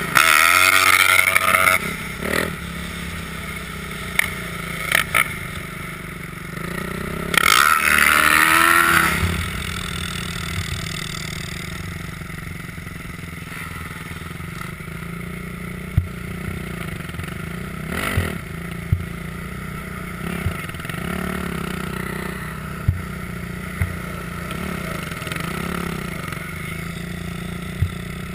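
Dirt bike engines: two loud revs, one at the start and one about eight seconds in, then a steady idle with a few sharp clicks.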